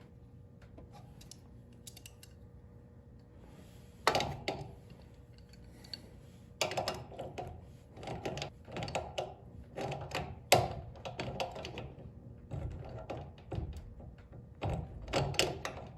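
Small crescent wrench clicking and clinking against the lock nut on a garage door opener's chain-tension bolt as the nut is tightened back down: a run of short, uneven metal knocks starting about four seconds in.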